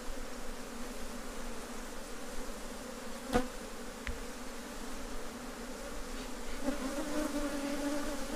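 Honeybees buzzing around an open hive, a steady hum that grows louder near the end as bees fly close with a steady pitch. A single sharp click a little over three seconds in.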